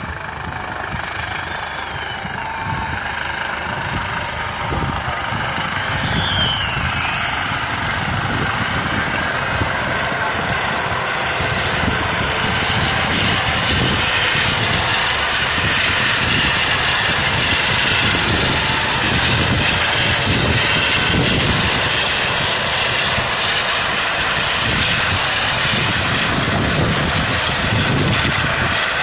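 Coast Guard MH-65 Dolphin helicopter flying low overhead: a steady chop of rotor noise over a turbine rush. It grows louder over the first dozen seconds, then holds steady.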